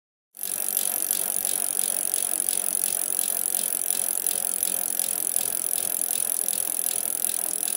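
A quick, even mechanical clicking over a steady hiss, starting about half a second in after a moment of silence.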